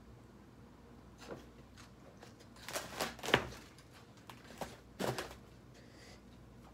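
Woven bamboo sticky-rice basket being handled, its lid knocking and rattling as it is lifted off and set back on. There is a cluster of sharp knocks in the middle and a shorter one near the end.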